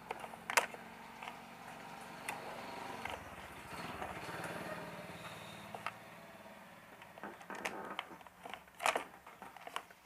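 Handling noise from a stand fan's plastic switch housing and power cord being turned over and moved on a wooden workbench: scattered light clicks and knocks, the sharpest about half a second in and near the end. A faint hum swells and fades in the middle.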